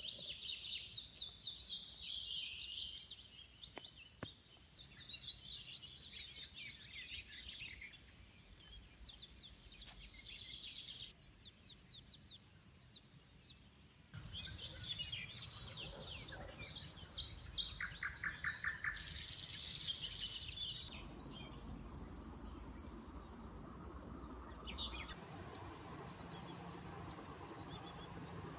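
Several small songbirds singing, with overlapping songs of fast, quickly repeated high notes. A few seconds past the middle, a steady high buzzing trill runs for about four seconds, over a light outdoor background hiss.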